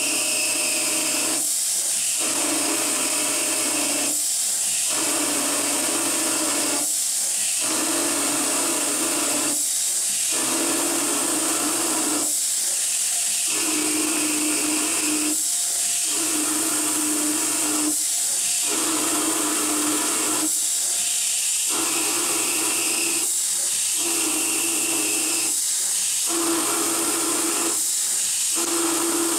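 Novakon Torus Pro CNC mill turning a part held in its spindle against a stationary turning insert. A steady hiss from the coolant nozzle runs over the spindle, and the cutting sound comes and goes in passes about every three seconds.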